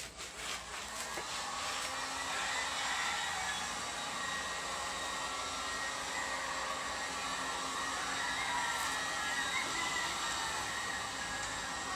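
Corded electric heat gun running steadily, blowing hot air over an airbrushed painted panel to harden the paint.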